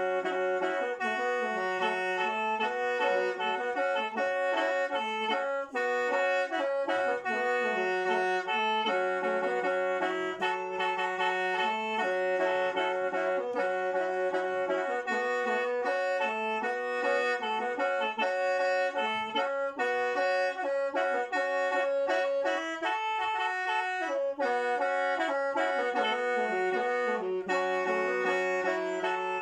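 Solo khaen, the Lao bamboo free-reed mouth organ, played without a break: several reeds sound together as chords, with steady drone notes held under a moving melody.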